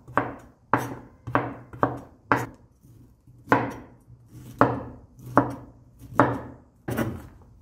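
A kitchen knife cutting broccoli florets on a bamboo cutting board: a dozen or so sharp cuts, roughly two a second, each knocking the blade onto the board, with a short pause about three seconds in.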